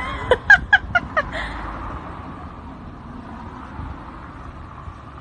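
A quick run of about six short, pitched animal calls in the first second and a half, over a steady background rumble.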